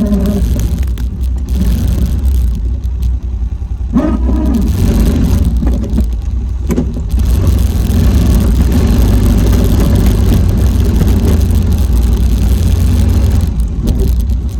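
Four-wheeler engine running under load with a heavy low rumble, its pitch rising and falling briefly a few times as the throttle changes, the first time about 4 seconds in.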